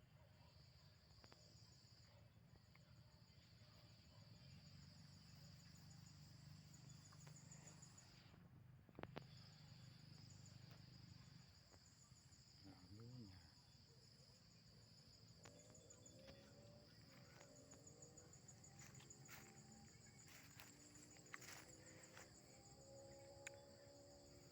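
Faint, steady high-pitched chirring of insects, such as crickets or cicadas, in the background.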